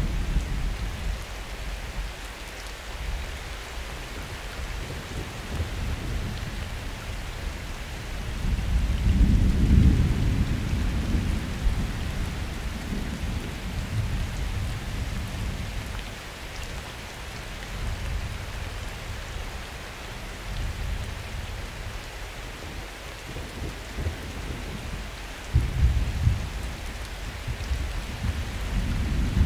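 Summer thunderstorm: steady rain hissing, with thunder rolling low underneath. The biggest roll swells about a third of the way in, and shorter rumbles come near the end.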